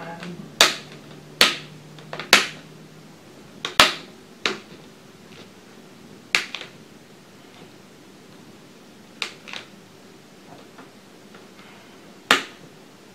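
Plastic screen bezel of a Dell Latitude E7440 laptop being pressed onto the display lid, its retaining clips snapping into place one at a time: about nine sharp clicks at uneven intervals, most of them in the first half.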